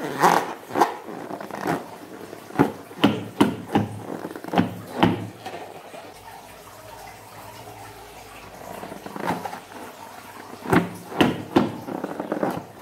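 Hands squeezing and rubbing a rubber balloon, making a string of short rubbing and squeaking sounds, with a quiet stretch of a few seconds in the middle.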